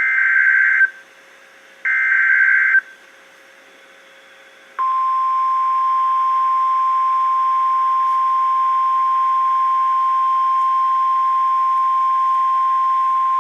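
NOAA Weather Radio Emergency Alert System broadcast: two roughly one-second bursts of SAME digital header data, a buzzy warbling screech, then after a short pause the single-pitch 1050 Hz warning alarm tone, one steady beep held for about nine seconds. The tone signals that a warning follows, here a Severe Thunderstorm Warning.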